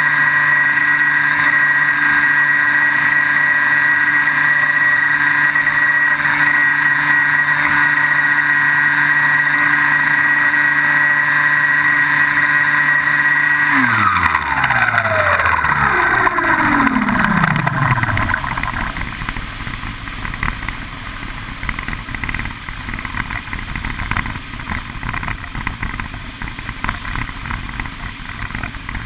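Electric motor and propeller of a Skywalker FPV plane, heard from the onboard camera, running at a steady high whine. About halfway through the throttle is cut and the pitch slides down over a few seconds as the motor spins down. After that only wind rushing over the gliding airframe is left.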